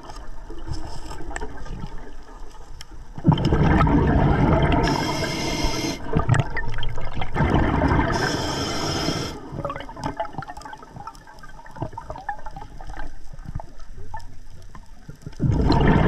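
Scuba diver breathing through a regulator underwater: a high hiss on each inhale, then a loud rush of exhaled bubbles, repeating over about three breaths, with small clicks and knocks in between.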